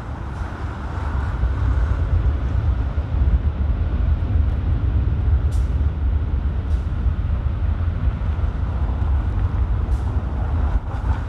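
City buses driving past close by, one after the other: a low engine and road rumble that swells about a second in and holds, with a few short high hisses.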